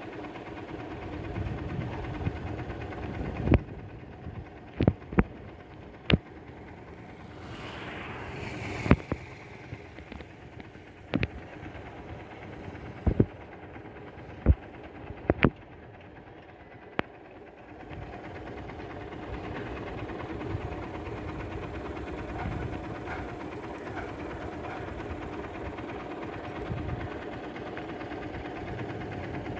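A steady low mechanical hum with about ten sharp clicks scattered through the first half.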